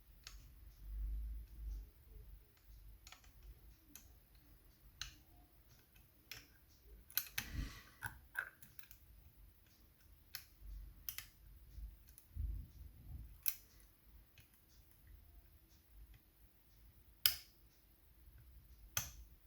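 Irregular small metallic clicks and scrapes of lever-lock picks working inside a Chubb 3G107 seven-lever lock as its levers are lifted, with a few soft low bumps of the lock being handled. The sharpest click comes about seventeen seconds in.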